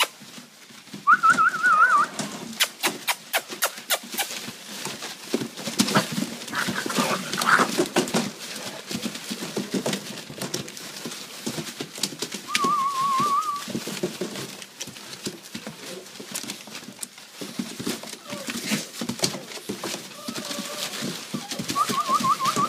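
A litter of young puppies whimpering, with three short warbling squeals, over the rustle and scratch of paws scrambling on shredded newspaper bedding.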